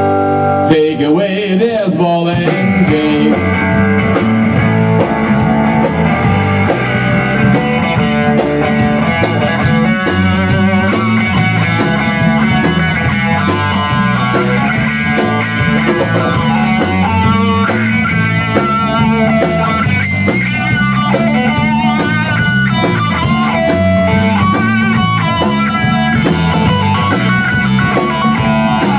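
Rock band playing an instrumental passage: an electric guitar plays a lead line with wavering bent notes over bass guitar and a Tama drum kit keeping a steady beat.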